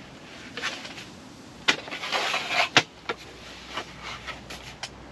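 Spring-loaded metal legs of a Fox two-tier bivvy table being pulled and folded flat one after another: a string of sharp clicks and knocks with a short scrape in the middle and a quick run of small clicks near the end.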